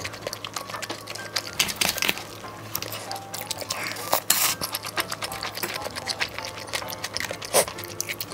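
Close-miked eating sounds: chewing with many small sharp clicks and crackles, and light clinks of utensils, over soft background music.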